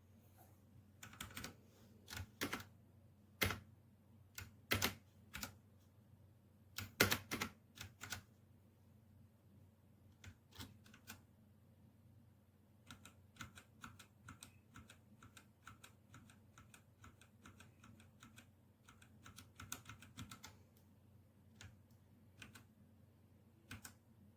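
Typing on a Redragon K617 Fizz 60% mechanical keyboard, its keys clicking. A few loud, separate strikes come first, then a longer run of quicker, lighter typing.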